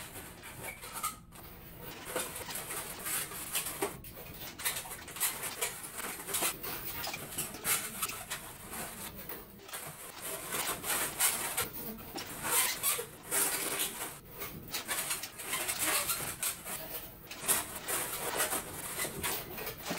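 Inflated latex twisting balloons squeaking and rubbing against each other and against hands as they are bent, twisted and locked together, in a run of irregular short squeaks.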